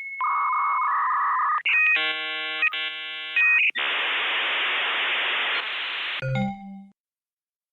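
Electronic sound effects: a steady high beep with a buzz under it, then about two seconds of synthesized chord tones, then a few seconds of hiss like TV static that cuts off suddenly.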